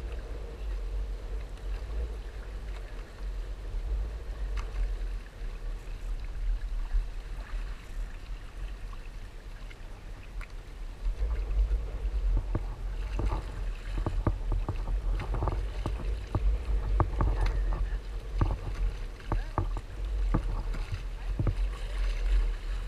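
Water splashing and slapping against the rotomolded polyethylene hull and outriggers of a Hobie Tandem Island sailing trimaran under way, with wind buffeting the microphone. The splashes come thicker and louder over the second half.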